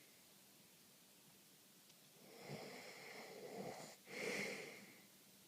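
A person snoring: one long snoring breath starting about two seconds in, a brief break, then a shorter, louder snorting breath.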